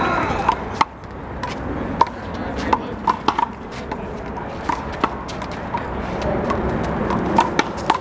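A rubber handball rally: sharp smacks of palms hitting the big blue ball, the ball striking the wall and bouncing on the court. The hits come irregularly, sometimes two or three in quick succession.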